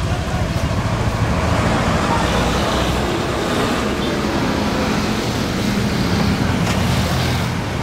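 Heavy road traffic: a coach's diesel engine running as it moves along the street, with a box truck passing close by, making a steady low rumble.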